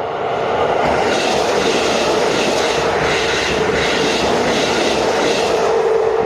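Keisei Main Line electric train passing over a level crossing, its wheels clattering over the rail joints about twice a second, while the crossing's warning bell rings on a steady tone. The train noise fades near the end and the bell keeps ringing.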